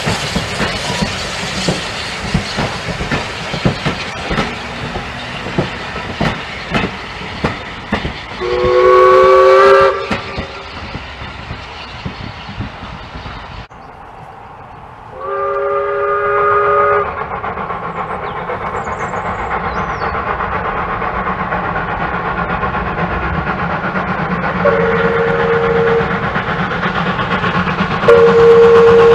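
Passenger coaches clattering past, their wheels clicking over the rail joints, then a loud chord-like whistle from a Bagnall saddle-tank steam locomotive lasting about a second and a half. After a break comes a second whistle of about two seconds, and near the end two shorter toots over steady train noise.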